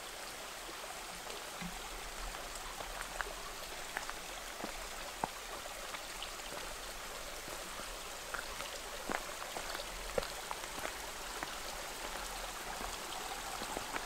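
A small mountain stream running over rocks: a steady rushing with scattered small ticks.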